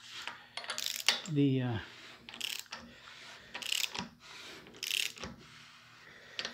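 Socket ratchet clicking in short strokes, about once a second, as it turns the screw of a crank gear installer tool on the crankshaft nose.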